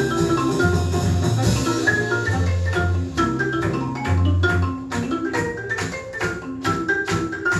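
Music played from a vinyl record on a McIntosh MTI100 turntable through B&W 804 floorstanding speakers, heard in the room: held bass notes under a pitched melody. About three seconds in, sharp percussion hits come in on a quick, steady beat.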